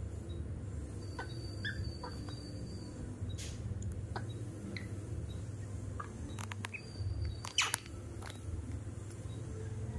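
A few thin, high squeaks from baby monkeys, each under a second, about a second in and again near 7 seconds, with scattered soft clicks over a steady low hum.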